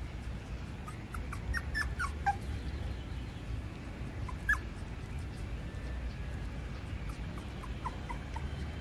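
Puppy whimpering in short, high squeaks: a cluster of them one to two seconds in, a single louder one around four and a half seconds, and a few more near the end.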